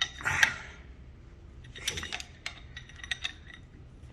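Metal tools clinking and clicking against the differential's bolts and case as the bolts are worked on: a short scrape near the start, then a run of sharp metallic clicks in the middle.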